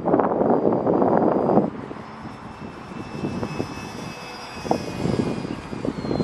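Electric motor and propeller of a Durafly Tundra V2 RC plane whining in flight, a thin high whine that wavers, dips in pitch near the end as the throttle eases, then climbs again. For the first second and a half, gusty wind buffets the microphone loudly, then drops away suddenly.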